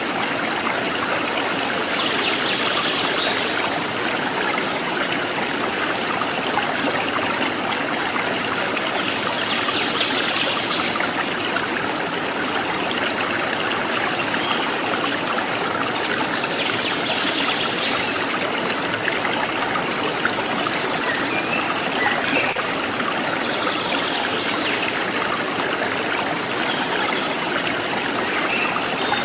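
Steady trickling and babbling of a forest stream, with a higher call from a wild bird recurring about every seven seconds above the water.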